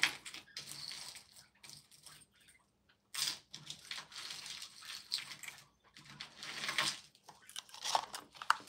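Close-up handling noise: bursts of rustling with a few sharp little clicks near the end.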